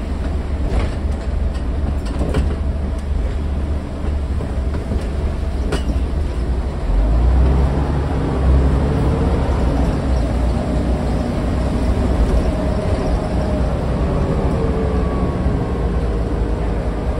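Scania N94UD double-decker bus heard from its upper deck while under way: a steady low diesel engine rumble, with sharp rattles of the bodywork about one, two and six seconds in. From about seven seconds in the engine pulls harder, with a drivetrain whine rising and falling in pitch.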